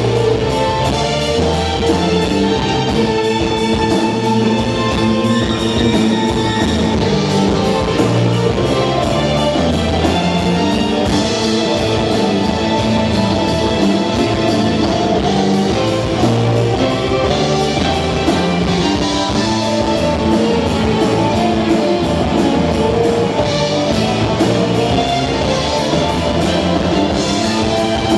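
Live rock band playing an instrumental passage, electric guitar over a steady drum-kit beat.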